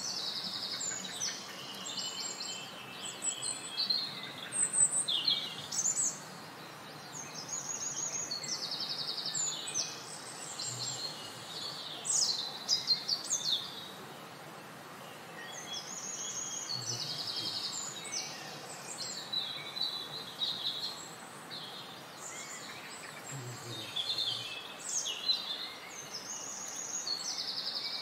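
Small songbirds chirping and trilling: a busy mix of short, high calls and rapid buzzy trills, overlapping and coming in clusters every few seconds over a soft background hiss.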